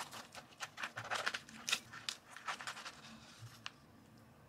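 Kitchen knife sawing through a sandwich of crusty bread on a wooden cutting board: a quick run of crunchy, rasping strokes that stops about three seconds in, followed by a single click.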